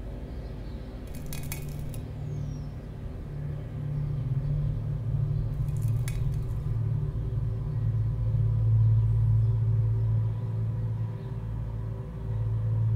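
A low rumbling drone that swells in loudness, with two brief clinks of settling debris, one about a second and a half in and another about six seconds in.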